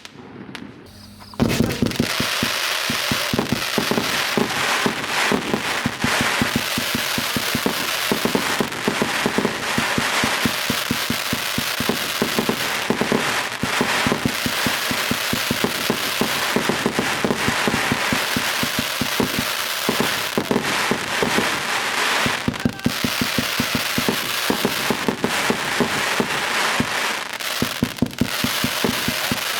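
Multi-shot consumer fireworks cake firing in a rapid continuous barrage: many sharp launch bangs a second mixed with crackling. It starts about a second and a half in, after a brief lull.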